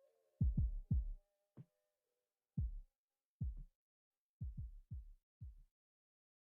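Soft, muffled low thuds, about ten of them, irregularly spaced, in small clusters, and growing fainter towards the end. A faint held tone dies away in the first two seconds.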